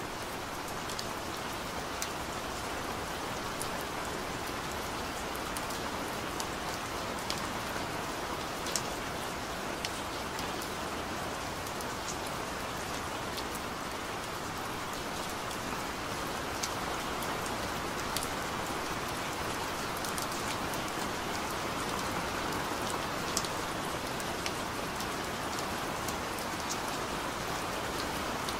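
Steady rain falling, an even hiss with individual drops ticking sharply here and there.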